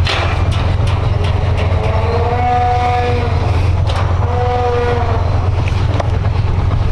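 Motorcycle engine running steadily while riding slowly, with scattered knocks and rattles. Two drawn-out pitched calls, each about a second long and rising then falling, come about a third and two thirds of the way in.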